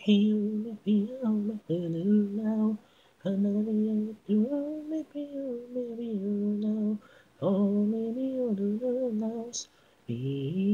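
A single unaccompanied voice singing a cappella: a vocal-only cover of a J-pop idol song. It sings in several phrases with short breath pauses between them.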